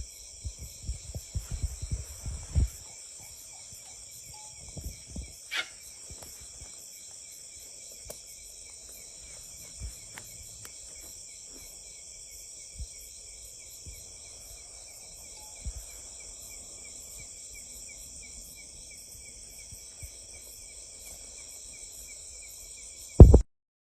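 A steady chorus of insects, such as crickets or cicadas, shrilling in several high layers that pulse rapidly. There are low knocks and bumps in the first few seconds and a few single ones later. One loud thump comes just before the end.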